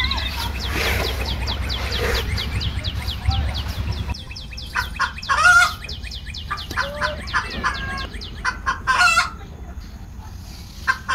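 Chickens clucking, with a fast run of high chirping calls and a few louder clucks; a low hum stops about four seconds in.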